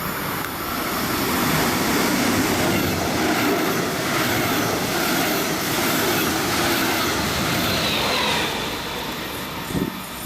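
A train passing on the track: steady rolling and rail noise that swells about a second and a half in, holds for several seconds, then eases off, with a faint falling whine near the end.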